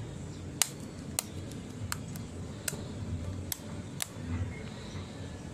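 Six sharp clicks at irregular intervals as an Enlan A11 action camera is handled, its cover put back on and its buttons pressed to turn it on, over a low steady hum.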